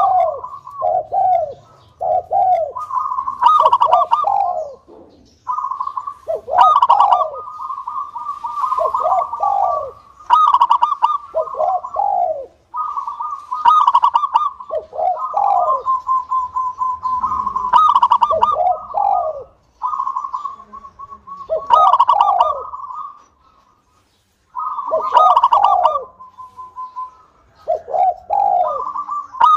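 Zebra dove (perkutut) cooing over and over in its rapid, rolling phrases, each a second or two long with short pauses between, and one brief silence a little past two-thirds of the way through.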